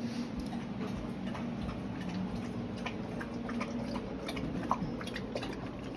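Rottweiler lapping water from a stainless steel bowl: a run of quick, irregular wet clicks and splashes.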